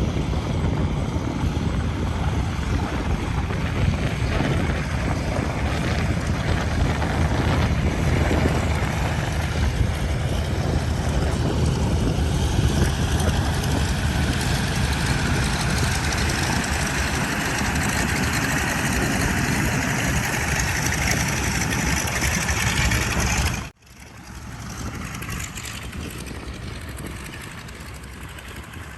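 Ford Tri-Motor's three radial engines and propellers running steadily, a loud drone with a higher tone swelling partway through. About 24 seconds in it cuts off abruptly and a quieter sound follows.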